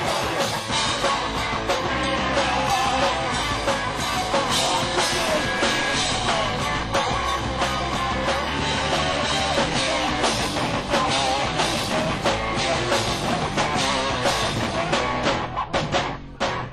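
Live heavy metal band playing loud: electric guitar over a drum kit, with a brief drop in the music near the end.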